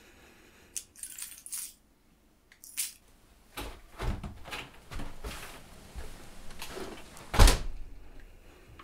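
Car keys jangling as they are handed over, followed by shuffling and knocks, then a loud thump near the end as a door shuts.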